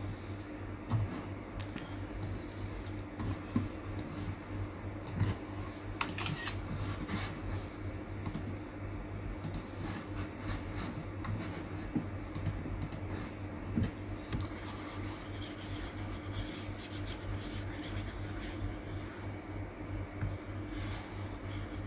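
Typing and clicking on a laptop keyboard, irregular keystrokes throughout, over a steady low hum.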